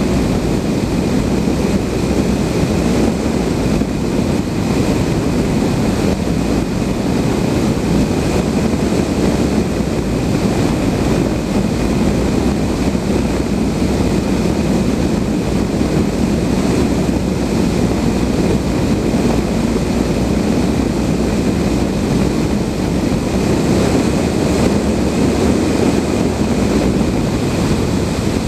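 Steady rush of airflow around a Blanik L-13 glider's cockpit in flight, loud and unchanging, with a thin steady high tone above it.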